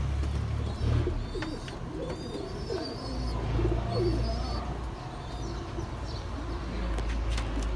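Domestic pigeons cooing over and over in low rising and falling phrases, with thin high chirps above them and a low rumble underneath. A few sharp clicks come near the end.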